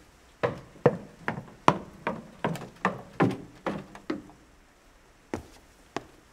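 A run of sharp knocks on a hard surface, about two or three a second for some four seconds, then two more, further apart, near the end.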